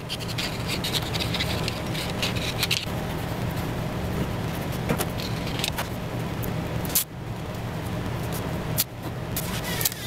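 Steady workshop machine noise: a continuous low hum under a hiss, with some scraping and crinkling early on. It breaks off abruptly three times.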